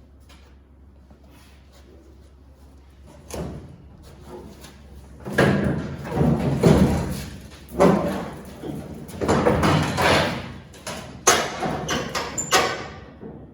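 Heavy sheet-metal truck part being manhandled and flipped over: irregular thumps, knocks and scraping of metal, starting a few seconds in and growing loud and busy for the rest.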